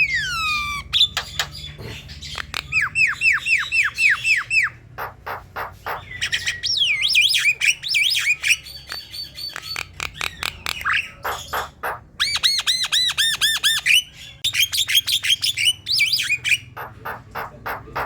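Javan myna singing a varied, loud song: fast runs of sharp clicks, quick series of repeated whistled notes, harsh squawks and long sweeping whistles, with short pauses between phrases.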